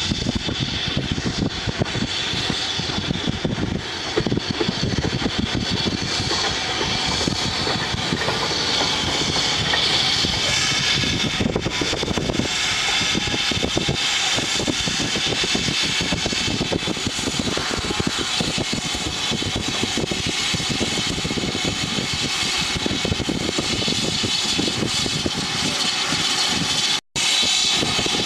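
BR Standard Class 4MT 4-6-0 steam locomotive 75014 running slowly past, with steam hissing from its open cylinder drain cocks, and wind buffeting the microphone. The sound cuts out for a moment near the end.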